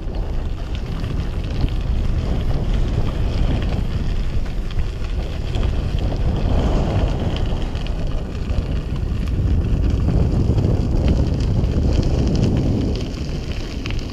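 Wind rushing over the microphone of a moving bicycle rider, a steady low rumble.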